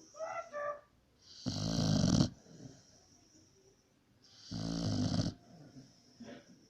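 Pit bull snoring in its sleep: two loud snores about three seconds apart, each lasting under a second.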